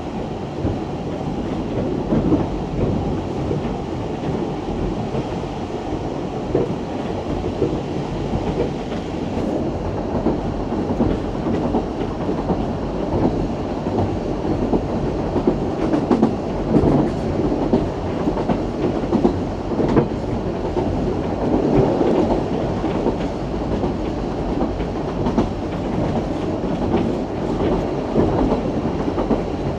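Isle of Man Steam Railway narrow-gauge train running along the line: a steady rumble of wheels on the track with irregular knocks and rattles.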